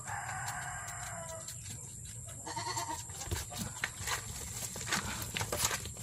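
Goat kid bleating: one long bleat of about a second and a half, then a shorter one a second later, followed by scattered light clicks and knocks of handling.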